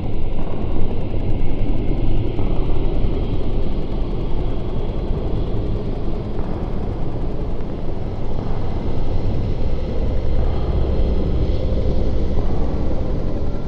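Dark ambient drone: a dense, steady low rumble with a layer of hiss above it, with no beat.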